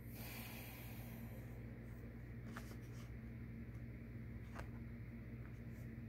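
Quiet room tone: a steady low hum, with a few faint, short clicks.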